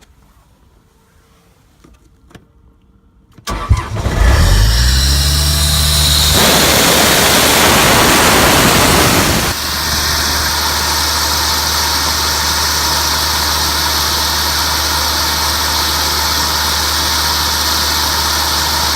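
John Deere 4045D four-cylinder diesel engine of an Ingersoll Rand P185 portable air compressor being started. After a few quiet seconds with faint clicks it cranks and catches, and its speed climbs. A loud rushing noise follows for about three seconds, then the engine settles into steady running.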